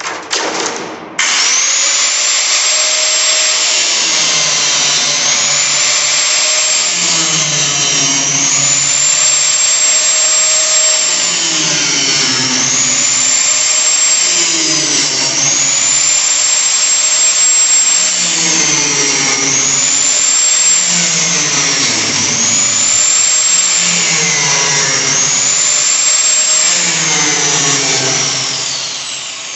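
A handheld power tool cutting through the metal bars of a grain bin unload door's safety screen, starting about a second in. Its high motor whine sags and recovers every two to three seconds as the cut loads it.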